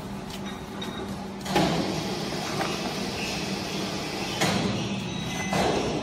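Vertical waste baler's loading door and chamber clattering as cardboard boxes are handled and pushed in: three short knocks and rattles over a steady low hum.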